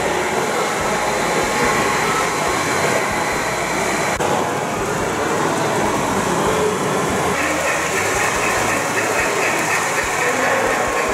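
On30-gauge model train running on the layout, making steady running noise, with a quicker clicking texture coming in about seven seconds in.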